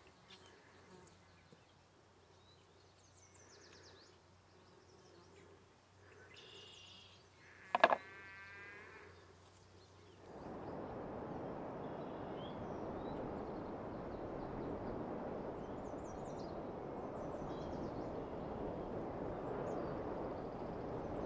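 Quiet outdoor ambience with scattered birds chirping and one brief, loud wavering call about eight seconds in. About ten seconds in, a steady rushing noise comes in suddenly and carries on, with birds still chirping over it.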